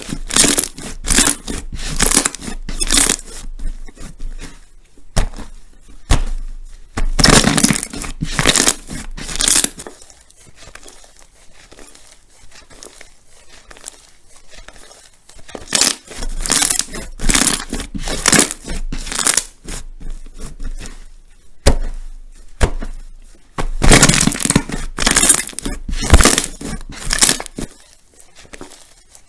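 Slime being squeezed and pressed by hand, giving crunchy crackling pops several times a second. The pops come in four spells, with quieter stretches between them.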